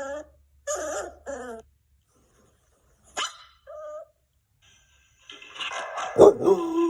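Dog barking: a quick run of short barks, a single sharp bark about three seconds in, then a longer, louder drawn-out call falling in pitch near the end.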